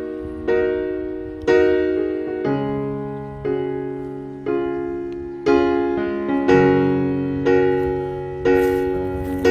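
Gentle background piano music: slow chords struck about once a second, each ringing out and fading before the next.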